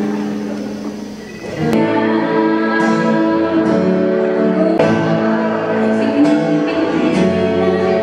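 Background music led by guitar, growing fuller and louder about two seconds in.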